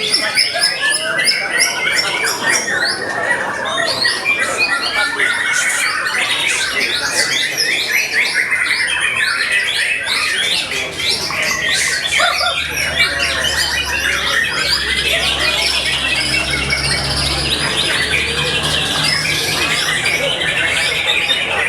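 Caged white-rumped shamas (murai batu) singing at once in a contest, a dense non-stop tangle of overlapping whistles and rapid chattering phrases. A low hum joins about halfway through.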